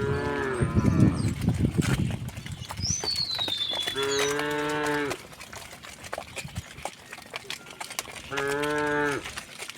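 Cows mooing: three short moos, each about a second long, one at the start, one about four seconds in and one near the end. A bird gives a short falling whistle just before the second moo.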